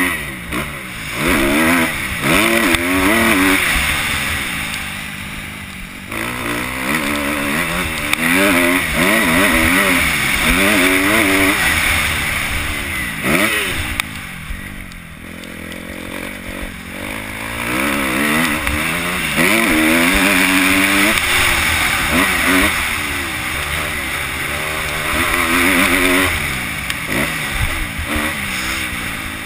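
2011 Kawasaki KX250F four-stroke single-cylinder motocross engine under hard riding. The revs rise and fall over and over as the throttle is opened through the gears and shut off, with a couple of quieter spells where the throttle is rolled off.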